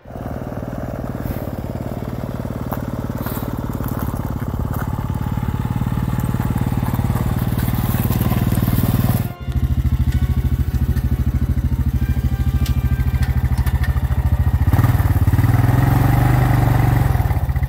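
ATV engine running steadily up close, growing gradually louder, with a brief break about nine seconds in.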